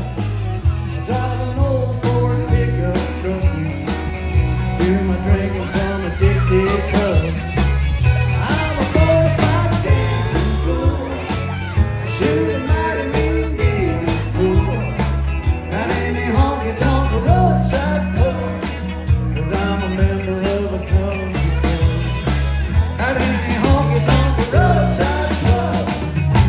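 A rock-and-roll song with a singing voice, a steady beat and a bass line.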